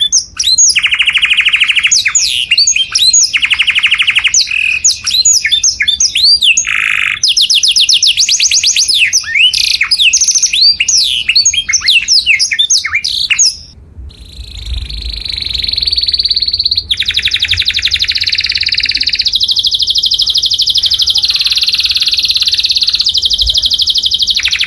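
Canary singing loudly: quick chirps and sweeping notes mixed with short fast trills, then, after a brief pause about halfway through, long sustained rolling trills.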